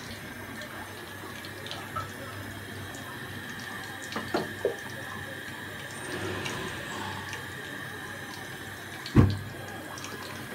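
Curry simmering in a covered pot on a gas stove: a steady bubbling hiss, with a few light clicks around four seconds in and one sharp knock about nine seconds in.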